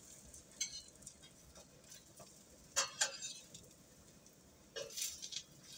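A few light clinks and clicks of a cooking utensil against a pot: one early, a pair around the middle and a short cluster near the end, with quiet between them.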